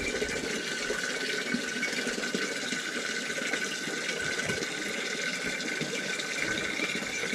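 Water running steadily into a container, with an even hiss and a faint steady tone.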